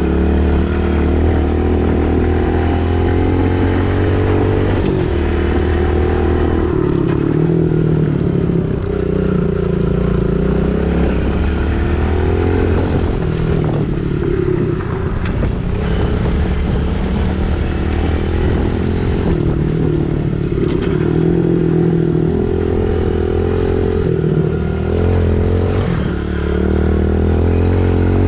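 Pit bike engine being ridden, its pitch climbing and dropping again and again as the throttle is opened and closed.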